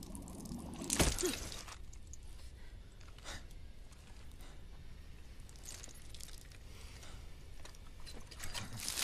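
Film sound effects: one sharp knock or clank about a second in, then a few faint clicks and rustles over a low, steady rumble.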